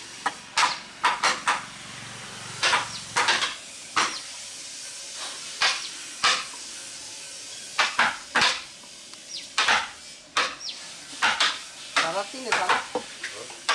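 Steel chisel cutting into a block of wood: a series of sharp, irregular knocks and cracks as chips are split away.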